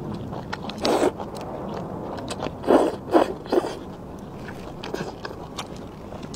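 Slurping and chewing thick potato noodles in broth: a slurp about a second in and three quick, louder slurps in the middle, with small wet mouth clicks between.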